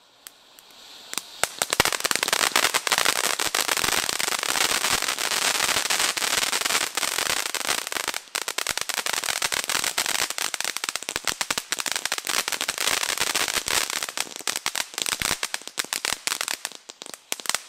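Firework fountain (ground volcano) spraying sparks with a dense, rapid crackling over a steady hiss. It builds up about two seconds in and thins out to scattered cracks near the end.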